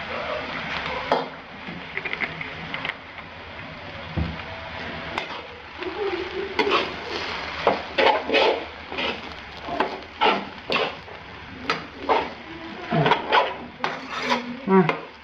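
Steel spoon stirring and tossing noodles in a frying pan, scraping and knocking against the pan. The strokes become quicker and more frequent about halfway through, around two a second.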